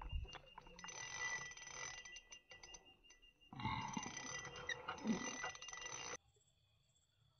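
Faint outdoor ambience: insects chirping steadily over a rustling, crackling noise that drops away for about a second midway. About six seconds in it cuts off suddenly, leaving only faint, higher insect chirps.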